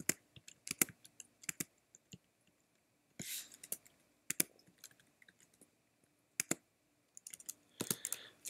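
Computer keyboard typing in scattered single keystrokes with pauses between them, and a quicker run of keys near the end.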